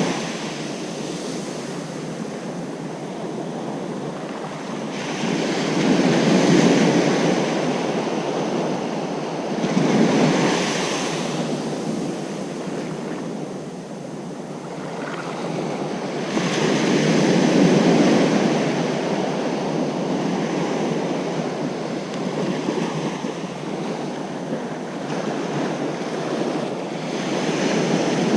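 Ocean surf washing onto a beach: a steady roar of breaking water that swells as each wave rolls in, with louder surges about six, ten and eighteen seconds in.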